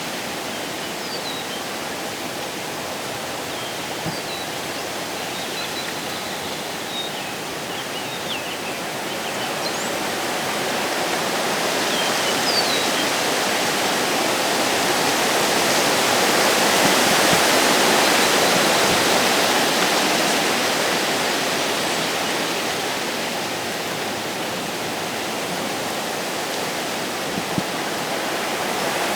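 Wind blowing steadily through the woods, swelling to a gust about halfway through and then easing. Faint bird chirps come through in the first half.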